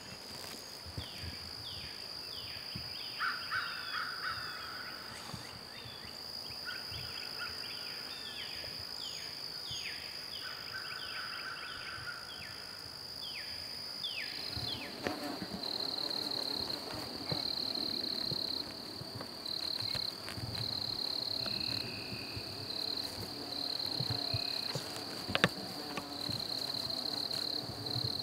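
Spring woods ambience: a steady high insect drone, with a songbird singing runs of quick downslurred whistles through the first half. About halfway, the insect sound changes to on-off trills and a low buzz comes in.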